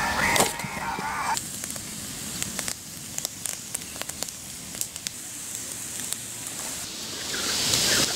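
Background music with singing stops about a second in. A wood campfire then crackles with irregular sharp pops, and a soft hiss builds near the end.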